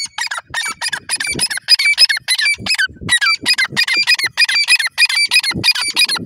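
Francolin (teetar) calling in a fast run of short, squeaky notes, about five a second, with a brief pause about two and a half seconds in.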